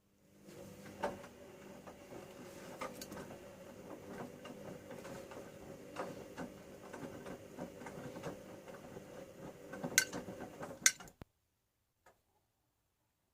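Bauknecht Super Eco 6413 washing machine's motor turning the drum during the wash: a steady hum with scattered clicks and clacks for about eleven seconds, ending with two sharper clicks before it stops abruptly.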